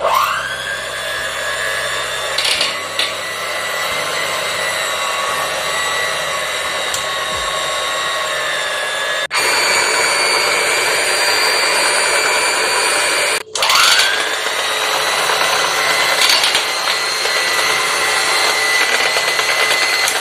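Electric hand mixer whining as its two beaters whisk thin crepe batter in a metal saucepan. It spins up with a rising whine, goes higher in pitch about nine seconds in, stops briefly and spins up again, with a few short rattles of the beaters against the pan.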